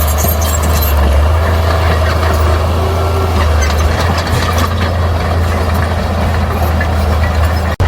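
Diesel engine of heavy earthmoving machinery running steadily with a strong low drone. The sound cuts out for an instant near the end.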